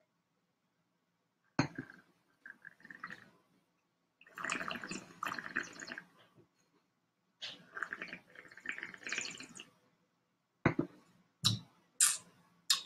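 A person sipping red wine and slurping it, drawing air through the wine held in the mouth to aerate it as in wine tasting: three gurgling, fluttering slurps, followed near the end by a few sharp clicks.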